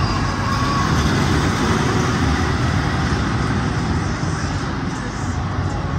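Steel roller coaster train running along its track, a steady loud rushing rumble that is a little louder in the first few seconds and eases off after.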